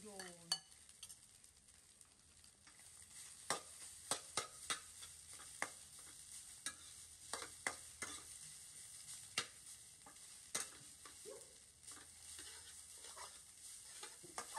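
Rice frying and sizzling in a metal wok on a portable gas stove, with a steady hiss, while a metal spatula scrapes and clinks against the pan at irregular intervals as the rice is stirred.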